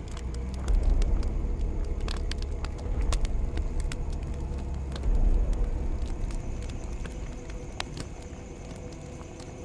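An open fire burning under a large metal pot: a low rumbling roar, with scattered crackles and pops. The roar swells about a second in and again about five seconds in.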